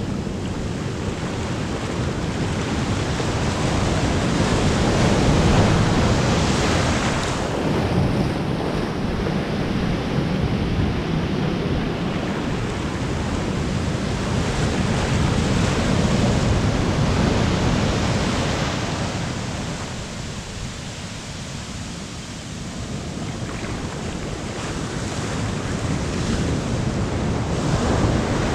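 Ocean surf breaking and washing over the shallows, swelling louder and easing off in slow surges, with a quieter lull about two-thirds of the way through.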